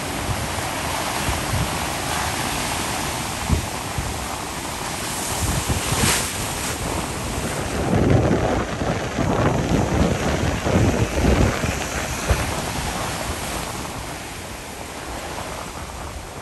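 Ocean surf washing on the beach with wind buffeting the microphone, the gusts strongest about halfway through.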